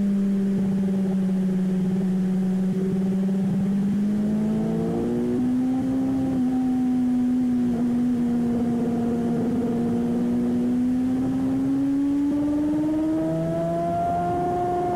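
Motorcycle engine running at steady revs: its note holds, steps up about five seconds in, then climbs gradually near the end.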